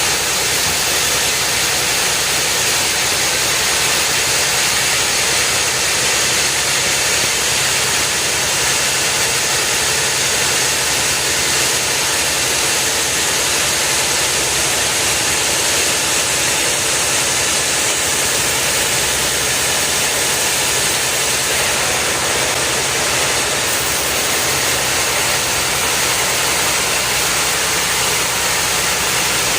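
Engine-driven machinery running steadily, an even, unbroken hissing drone with no pauses or changes in pitch.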